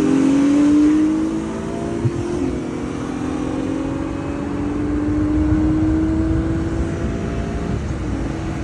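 Car engines at full throttle in a rolling-start race, heard from inside one of the cars. The engine note climbs steadily in pitch, drops with an upshift about two and a half seconds in, climbs again, and shifts once more near the end, over road and wind noise.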